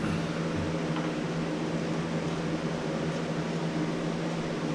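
Steady mechanical hum with a constant low tone, the drone of a running motor such as a fan or air-conditioning unit.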